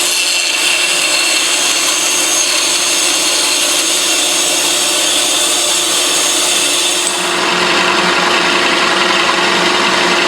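Bandsaw and drill press cutting plywood, with a steady motor hum under the cutting noise. The sound changes about seven seconds in, getting lower and fuller, as one tool gives way to the other.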